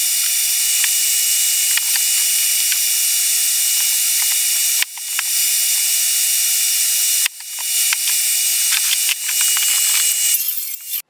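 Bee vacuum running with a steady whine and hiss, with scattered sharp clicks as debris and bees are drawn up the hose. The sound drops out suddenly twice, about five and seven seconds in, and the motor stops near the end.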